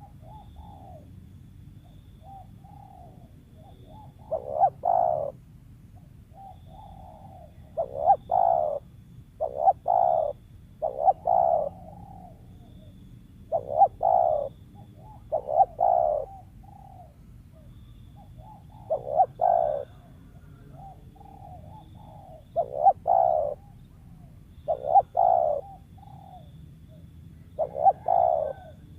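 Spotted dove (tekukur) cooing over and over: each phrase is a few soft coos leading into a louder double coo, repeated every two to four seconds.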